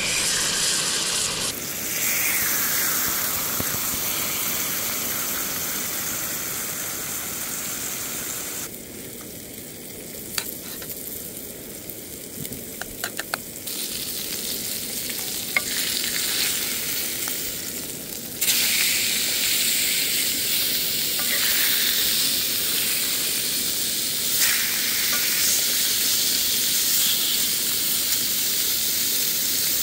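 Marinated meat frying in a hot pan on a portable butane camp stove: a steady, loud sizzle. It drops quieter for several seconds in the middle, where a few sharp ticks sound, then comes back up.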